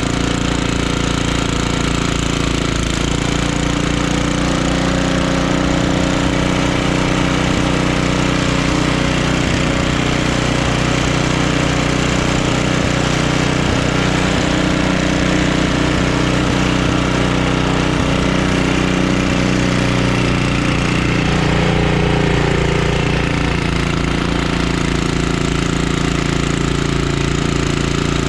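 1976 Ariens Sno-Thro snowblower engine running steadily while it clears heavy, wet slush. Its note shifts a little around twenty seconds in.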